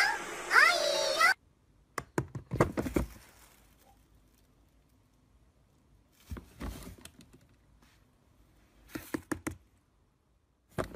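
Plastic swing-lid kitchen bin knocked about by a cat: several short clusters of light knocks and thunks, with quiet gaps between them.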